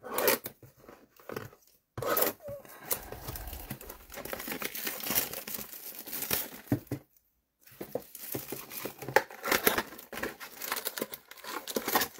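Plastic wrapping torn and crinkled off a mini box of trading cards, with the card packs rustling as they are pulled out. The rustling stops briefly twice.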